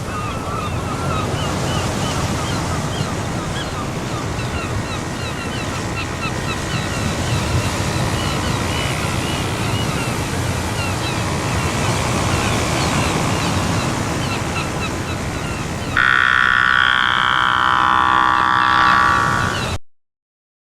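Steady outdoor noise of wind on the microphone and water, with many quick high chirps throughout. About three-quarters of the way in a louder, different sound takes over, then cuts off suddenly.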